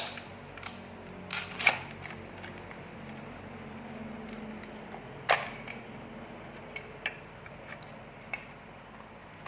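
Scattered sharp clicks and knocks of hands working on a soldering station and its handpiece connector: a loud click at the start, a quick cluster about a second and a half in, another sharp click about five seconds in, and a few smaller ticks later.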